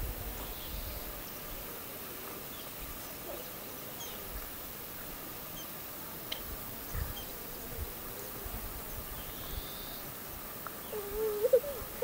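Wetland ambience at a pond: a steady faint outdoor hiss with insect-like buzzing and scattered faint short chirps, and a louder short wavering call near the end.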